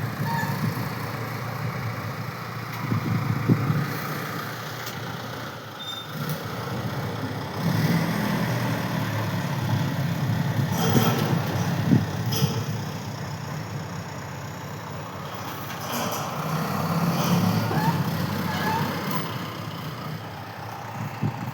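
Diesel engine of heavy construction machinery running under load, swelling louder and easing off twice, with a few sharp metallic knocks partway through.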